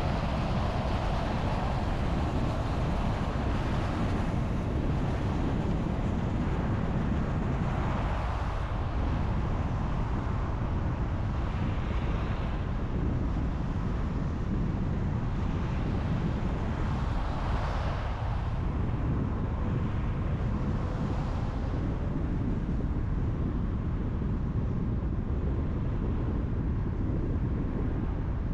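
Car driving on a highway: steady tyre and road rumble with wind noise, swelling briefly about five times.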